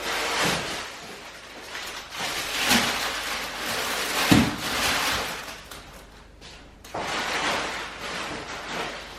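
Kitchen handling sounds: a few thuds of things being knocked or set down, and stretches of rustling or rushing noise in between.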